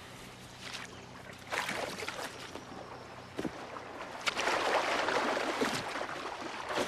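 Water splashing and sloshing, with a few sharper splashes, getting louder about four seconds in.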